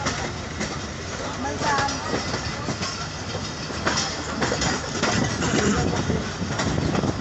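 Passenger express train running at speed, heard from an open doorway of a coach: a steady rumble with irregular clacks of the wheels over rail joints.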